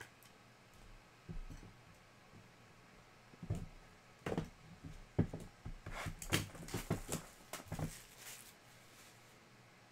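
A cardboard trading-card hobby box being handled and opened by hand: a few knocks about a second in, then a busy run of knocks, taps and scraping rustles through the middle that dies away near the end.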